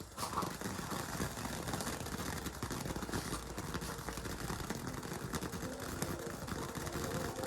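Steady low rumble of a running vehicle, with a held steady tone coming in near the end.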